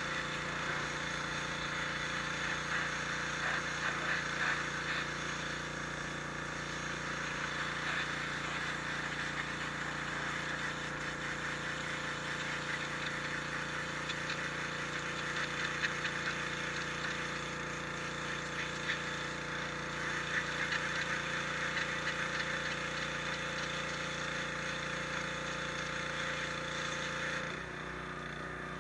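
High-pressure washer running steadily, its water jet hissing against stone over the steady hum of its pump motor. Near the end the spray stops briefly while the motor keeps running.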